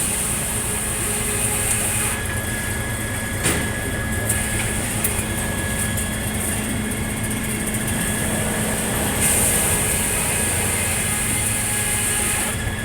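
Circular sawmill running: a steady engine hum under a high hiss that comes and goes as the blade saws through cottonwood, loudest for the last few seconds. There is a single sharp knock about three and a half seconds in.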